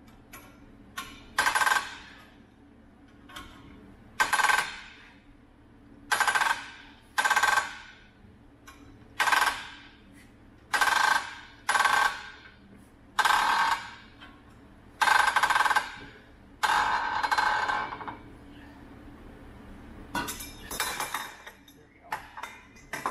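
Steel bearing being drawn off a semi truck power divider's input shaft with a hand-turned jaw puller: about a dozen sharp metallic pops, each ringing out briefly, coming every second or two as the bearing breaks loose and creeps along the shaft. A couple of the later pops ring longer.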